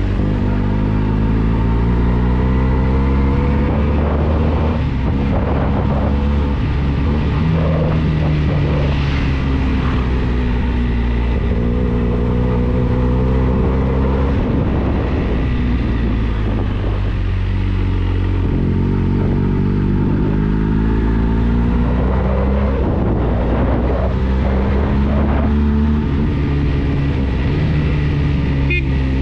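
Benelli TNT 300 motorcycle's 300 cc parallel-twin engine through its stock exhaust, on the move: the engine note climbs and falls repeatedly as the bike accelerates and slows.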